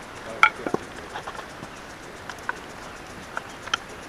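Wooden parts of a Kermit folding chair knocking and clacking together as they are handled and fitted: one sharp knock about half a second in, then scattered lighter clicks.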